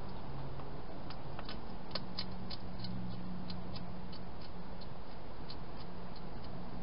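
Wild hedgehog eating dry food, its chewing making a string of sharp, irregular crunching clicks a few times a second, over a steady low hum.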